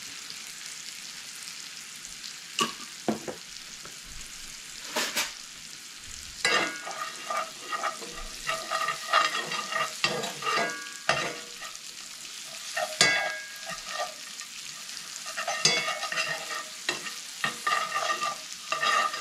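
Chopped walnuts with honey and cinnamon sizzling gently in a cast-iron skillet, toasting over low heat. A metal spoon stirs and scrapes them around the pan: a few single knocks at first, then from about six seconds in, quick repeated scrapes that ring against the iron.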